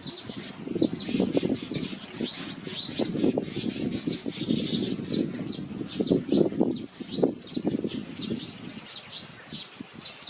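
Weaver birds chirping in quick, short, high notes, several a second, over a low irregular fluttering of wings and rustling.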